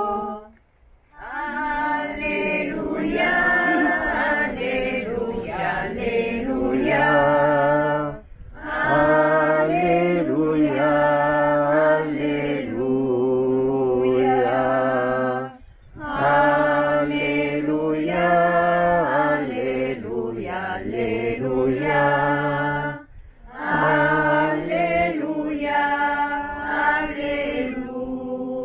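A church choir singing in four long phrases of about seven seconds each, with short breaths between them.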